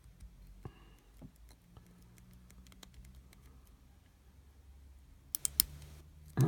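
Lock pick and tension wrench working the pins of a five-pin U-Haul 33510 laminated steel padlock: faint scattered ticks and scrapes, then a few sharp clicks about five and a half seconds in and a louder snap near the end as the lock gives.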